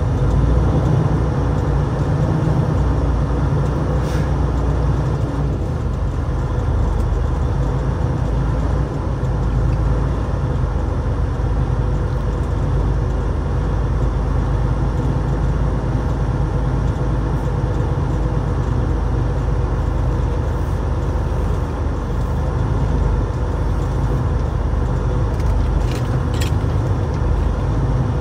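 Tractor-trailer on the road: a steady, loud low rumble of engine and road noise that never lets up.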